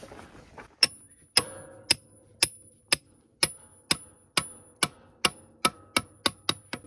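Hand-held mason's hammer striking repeatedly, about fifteen sharp blows with a bright metallic ring, roughly two a second and quickening toward the end.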